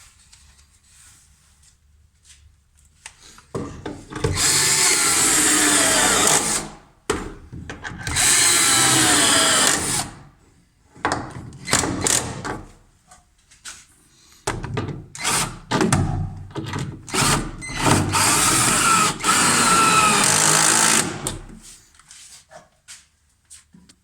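Power drill running in three long bursts, its motor pitch rising and falling as the speed changes, with short knocks and clatter in the pauses between bursts.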